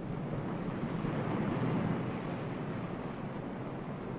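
A rushing wash of noise that swells to its loudest a little under two seconds in and then eases off, like a surging wave.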